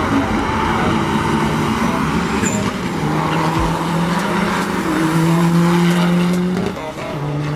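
Tuned big-turbo Audi A3 1.9 TDI PD four-cylinder diesel pulling hard at full throttle from a drag-race launch. The engine note climbs steadily through the gears, with a brief break for a gear change near the end.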